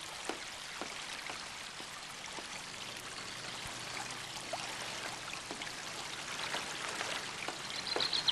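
Garden fountain spraying water that falls and splashes into a pool, a steady hiss of running water.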